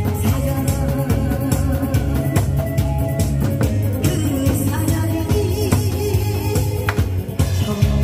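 Music with a drum-kit beat, loud and steady.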